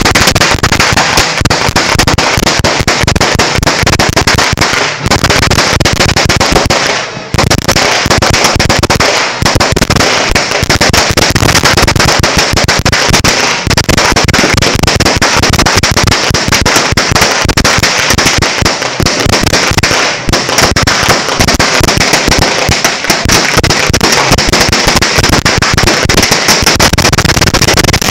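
A 1000-round sawa, a long Filipino firecracker string (Mgarcia Fireworks 5-star), going off as a continuous rapid chain of bangs, with a brief lull about seven seconds in.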